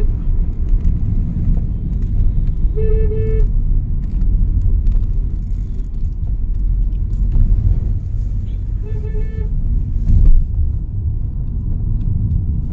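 Steady road and engine rumble inside a moving car's cabin, with two short horn toots, one about three seconds in and one about nine seconds in. A thump comes just after ten seconds.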